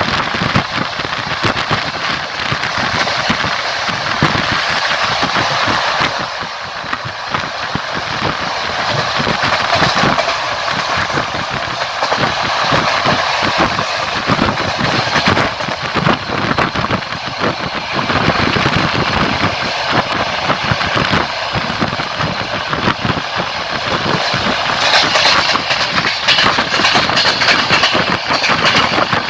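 Passenger train running along the line: a steady rolling rumble with the clatter of its wheels over the rails, heard from a carriage window.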